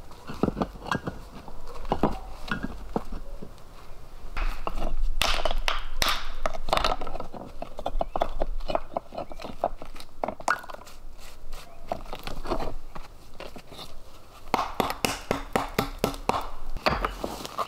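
Stones knocking, clacking and scraping against one another as they are set by hand onto a dry-stone wall, in many short sharp knocks, thickest and loudest about five to seven seconds in, with crunching of dry leaves underfoot.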